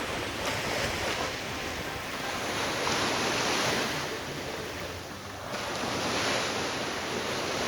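Ocean surf washing ashore in a steady rush, swelling twice, about three seconds in and again about six seconds in.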